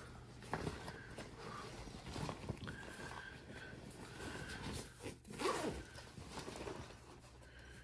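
Zipper on the main compartment of a nylon tactical backpack being drawn open in short, uneven pulls, with the fabric rustling as the compartment is folded open.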